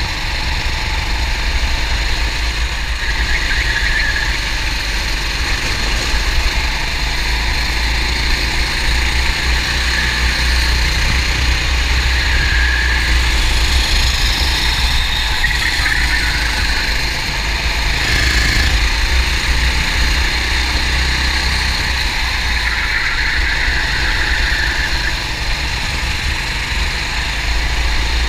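Kart engine heard from onboard, running at racing speed with its pitch rising and falling every few seconds as the throttle opens and closes through corners, over a steady heavy low rumble.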